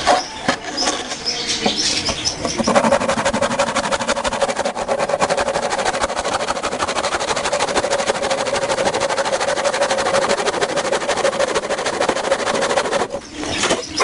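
Handsaw rasping through a wooden pole. From about three seconds in, the sound turns into an even, continuous rasp with a steady hum under it, which stops shortly before the end.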